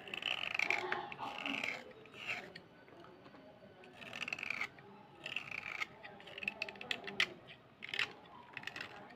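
Knife blade scraping the coated outer layer off a slate pencil, about ten short scraping strokes with pauses between them. There are a few sharp clicks near the end.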